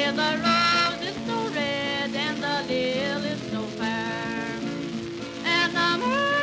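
Old-time country music played from a 78 rpm shellac record: a voice singing a wavering melody over guitar, with a faint crackly hiss of record surface noise.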